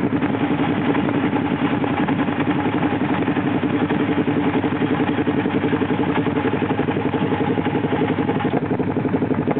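ATV engine idling steadily, a constant even beat without revving.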